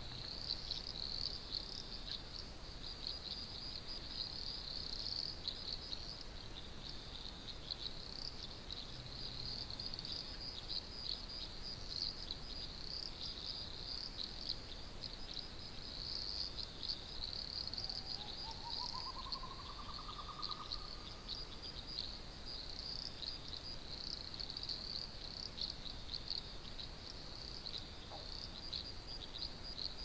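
Night chorus of crickets, a continuous high-pitched chirping trill. Around the middle, a separate faint whine rises in pitch for about three seconds.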